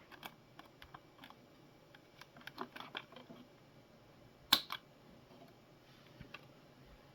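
Faint, scattered clicks and taps of hands working on a DeLonghi coffee machine's plastic housing and wiring as the top cover's cable is being disconnected. There is a sharper click about four and a half seconds in.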